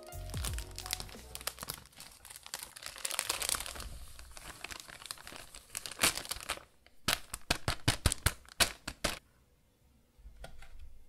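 A plastic bag crinkling as pancake mix is poured out of it into a glass bowl: a dense crackle for several seconds, then a run of sharper crinkles that stops about nine seconds in.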